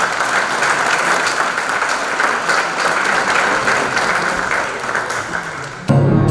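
Audience applauding steadily in a concert hall. Near the end the applause cuts off suddenly and an orchestra with brass begins to play.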